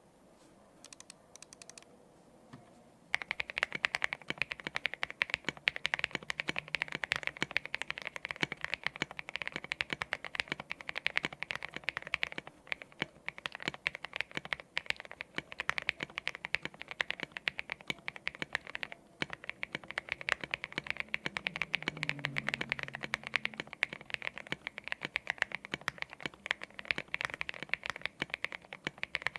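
Fast continuous typing on a custom mechanical keyboard with lubed linear aeboards Raed switches, an aluminium plate, foam dampening and tall SA-profile keycaps, giving deep, marbly keystroke clacks. A few light clicks come first, and steady typing starts about three seconds in.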